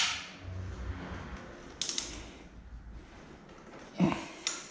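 A few sharp metallic clinks from hand tools and metal parts at a motorcycle's front axle while the wheel is being refitted. The loudest comes right at the start, another about two seconds in, and two close together near the end.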